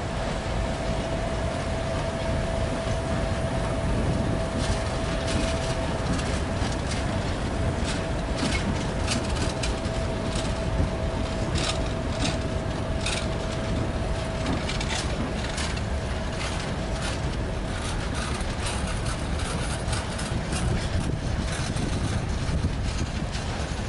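Broad-gauge freight train of hopper wagons rolling past, hauled by two ST44 diesel locomotives: a steady low rumble with irregular clicking and clacking of wheels over the rail joints. A steady whine from the departing locomotives fades out about 20 seconds in.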